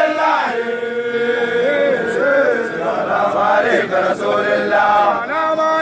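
Voices chanting together in a Sufi religious chant, holding long notes and sliding from one pitch to the next every second or two.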